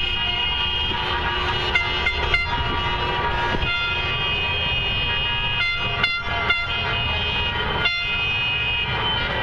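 Many car and truck horns honking over one another in a continuous stream as vehicles drive past, sounded in protest. Several held horn tones overlap, with a few brief breaks, over the low rumble of passing traffic.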